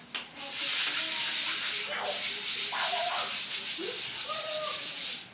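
Soft grass broom sweeping a polished floor: quick repeated brushing strokes with a hiss, starting about half a second in, with a brief pause near two seconds.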